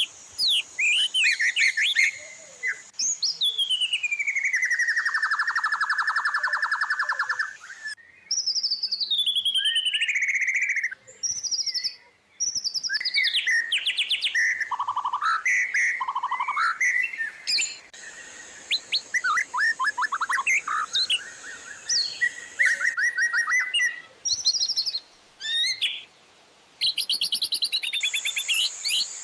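A white-rumped shama (murai batu) sings a long, varied song of loud whistled phrases, rapid trills and sweeping falling glides, the fast shifting style of a shama's full song with mimicked fill phrases. A steady high-pitched hiss sits under the song at the start and again near the end.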